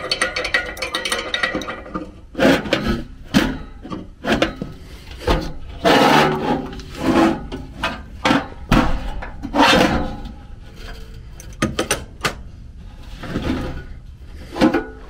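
Irregular knocking, scraping and rubbing of a sheet-metal furnace blower housing and a wrench being handled, with louder clatters about six and ten seconds in.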